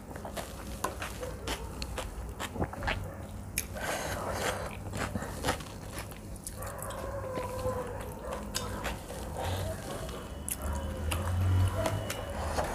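Close-miked eating sounds: a person chewing, with wet mouth clicks, as she eats rice and fried fish by hand. Many short sharp clicks come through, with fingers picking and squishing at the food.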